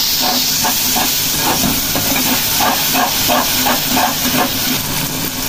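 Green chilli paste frying in hot oil with onions in a metal pot, hissing steadily, while a steel spoon stirs and scrapes through it in quick strokes, about three a second, which stop near the end.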